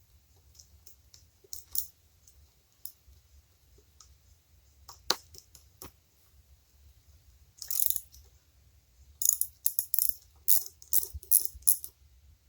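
Hand ratchet wrench clicking in quick short runs as it works a head cover bolt loose, after a few scattered metal taps and clinks of the tool being fitted.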